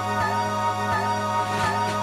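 Background music: sustained chords held over a steady bass note, with no vocals.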